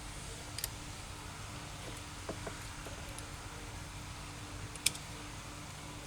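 A few light, sharp metallic clicks and taps from hand work on the mechanical fuel injection pump, the loudest about five seconds in, over a steady low hum.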